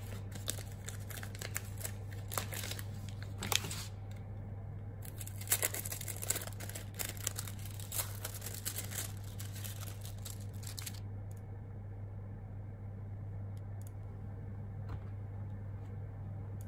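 Plastic wrapping of a packaged processed cheese slice crinkling in the hands as it is opened and peeled off, a run of irregular sharp crackles that stops about eleven seconds in. A steady low hum lies underneath.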